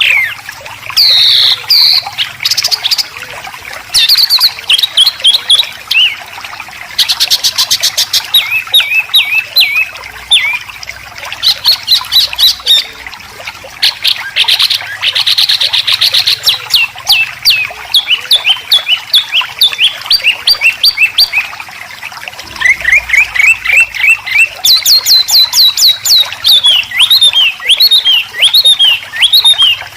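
White-rumped shama and greater green leafbird giving 'besetan' calls: rapid runs of sharp, downward-sweeping chirps and fast trills, one run after another with hardly a pause.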